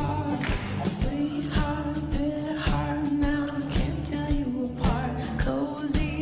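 Background song: a singing voice holding long notes over a steady drum beat.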